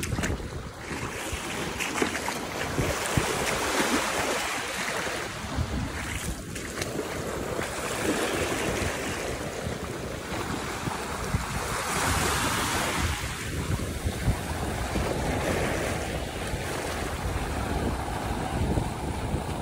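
Small waves washing in over a sandy beach at the water's edge, the wash swelling and easing every four seconds or so, with wind rumbling on the microphone.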